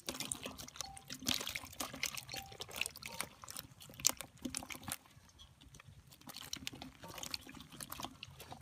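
A basin of live fish, climbing perch among them, flapping and flipping against each other in shallow water: a dense patter of small wet slaps and splashes. It is busiest over the first five seconds, eases off briefly, then picks up again near the end.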